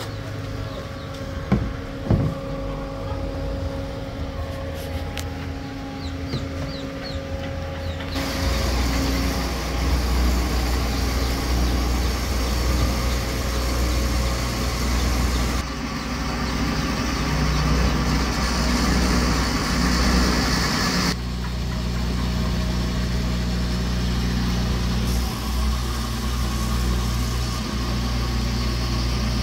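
Steady mechanical hum of motors and engines, changing abruptly several times.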